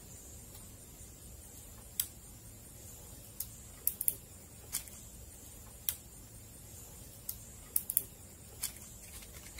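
Transfer tape being peeled slowly off a vinyl decal on a window: scattered sharp ticks and crackles, about a dozen, starting about two seconds in, over a faint steady hiss.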